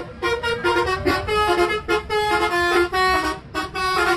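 Bus telolet horns played from a keyboard, sounding a quick tune of short, distinct horn notes with a low rumble underneath. There is a short break a little past three seconds.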